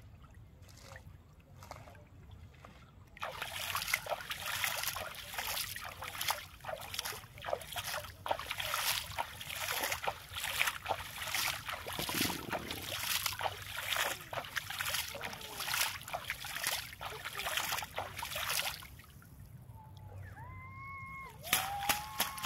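Water sloshing and splashing around a cast net as it is hauled in by hand through shallow water. The splashing is quieter at first, busy and rapid from about three seconds in, and dies down a few seconds before the end.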